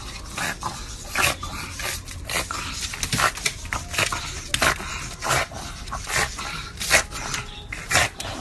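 A pug pawing and scrabbling at the glass wall of a small animal's tank: irregular scrapes and taps of claws on glass, a few a second.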